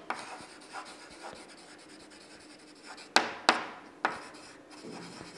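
Chalk writing on a chalkboard: faint scratching strokes, then three sharp taps of the chalk against the board about three seconds in.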